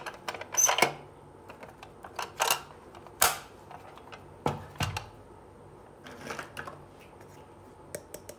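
Hard plastic toy kitchen pieces handled by hand: scattered clicks and knocks as the miniature kitchen unit is moved and set down, and a small plastic pot is picked up. The loudest knock comes a little over three seconds in, with a brief rustle around six seconds.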